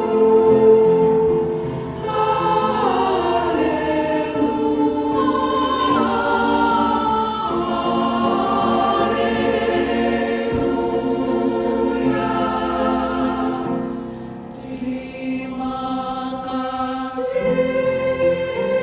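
A church choir singing an anthem in held, sustained chords. The singing softens briefly a little before the end, then swells again.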